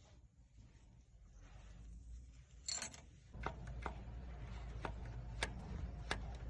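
Hands-on work on a diesel generator set. A brief sharp clatter comes about halfway through, then a low steady rumble with a sharp click about twice a second.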